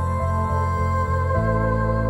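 Slow, ambient background music of sustained chords over a steady low bass; the chord changes about a second and a half in.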